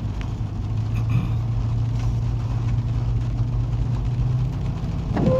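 Car driving along at a steady speed: a low engine hum and road rumble, the hum easing off near the end.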